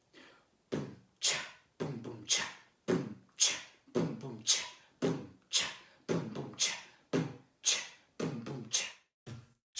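Steady percussion beat, about two strokes a second, each a low thump with a hiss above it.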